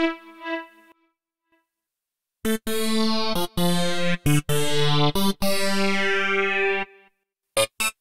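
Korg Mono/Poly V2 software synthesizer, an emulation of the 1981 four-oscillator analog synth, playing presets. A pitched tone dies away in the first second. After a short silence, a clavinet-like synth patch plays a run of notes and chords, then a few short staccato stabs near the end.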